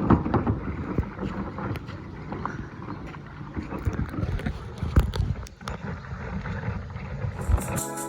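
Wind rumbling on the microphone, with scattered sharp knocks typical of paddles and kayaks on the river. Background music comes in near the end.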